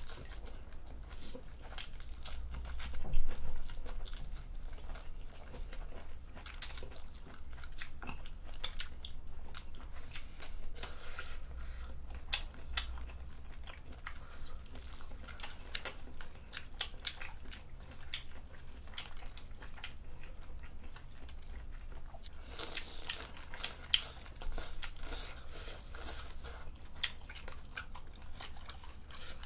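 Close-miked chewing and biting of a spicy seafood stew and rice: a steady run of small wet clicks, smacks and soft crunches. A sharper knock comes about three seconds in.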